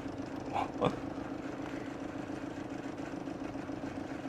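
Sippon BJC2021 steam vacuum cleaner running with a steady hum, its steam function switched on at maximum. Two brief sounds come just under a second in.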